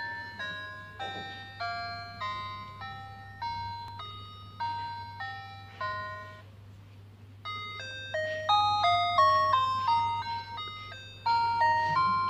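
A simple electronic melody of single beeping notes, about two a second, each struck and fading like a music-box chime. After a short pause about halfway through, a louder, quicker phrase follows. A faint steady low hum runs underneath.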